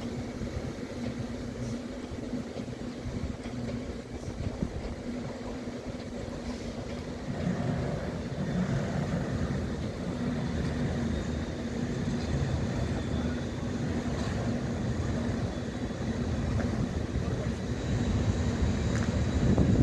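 PKP Intercity passenger coaches rolling slowly over a level crossing: a steady rumble of wheels on rails that grows louder about seven seconds in.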